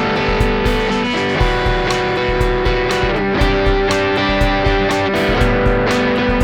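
Electric guitar played through a Xotic EP Booster pedal into a Vox MV50 AC amp: sustained, ringing chords with a steady rhythm of picked strokes, changing chord about three seconds in.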